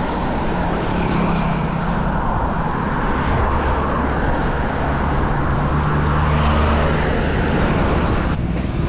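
Road traffic noise: a steady rumble of motor-vehicle engines and tyres on the road, heard from a bicycle being ridden along it, with an engine hum that rises and falls in pitch.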